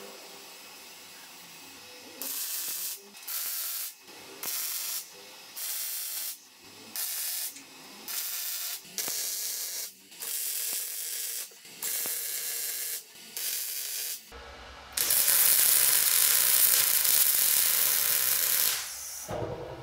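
Electric arc welding on steel plate: a run of short, evenly spaced welds of about half a second each, then a single longer weld of about five seconds near the end. The arc crackles over a low hum from the welder.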